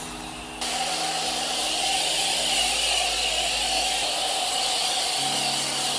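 Car-wash high-pressure washer lance starting to spray about half a second in, then a steady hiss of water jetting.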